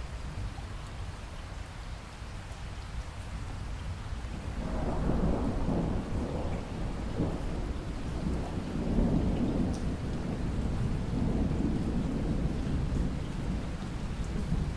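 Steady rain falling, with a long rolling rumble of thunder that builds about four seconds in and swells several times before it fades out.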